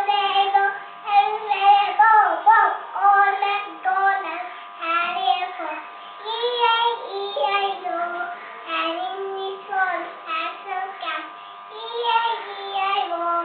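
A young girl singing a song alone, in short phrases with brief pauses between them.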